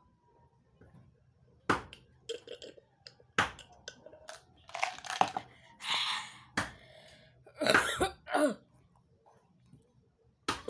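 A child's breathy gasps and coughs after gulping Coca-Cola, with a few sharp knocks of a plastic cup on the table.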